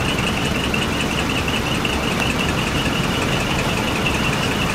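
A dekotora (decorated) light truck's diesel engine running as the truck creeps forward at low speed, over a fast-pulsing high tone that runs steadily throughout.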